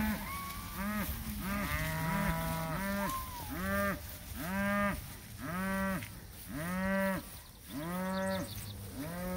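Cattle mooing over and over, about one call a second, with calls overlapping in the first few seconds.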